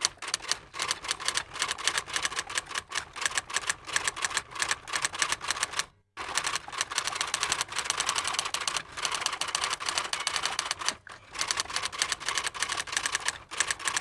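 Typewriter keys clacking in a fast, continuous run of strikes, with a short break about six seconds in and another near eleven seconds.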